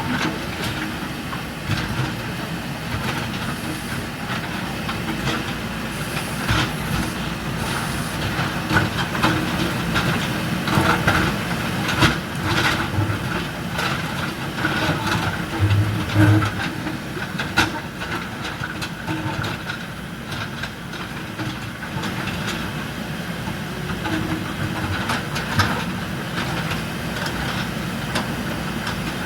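JCB 3DX backhoe loader's diesel engine running steadily under work, with irregular metallic clanks and knocks throughout.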